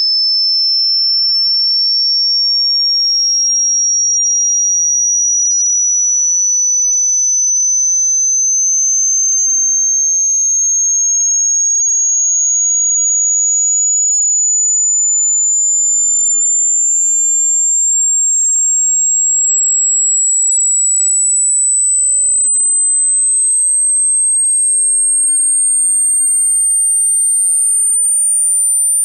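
Hearing-test tone: a single high, pure sine tone climbing slowly and steadily in pitch in small steps, at an even, loud level.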